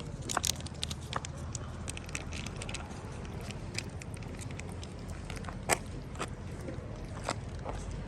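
A young cat chewing food: irregular crunching clicks over a steady low rumble.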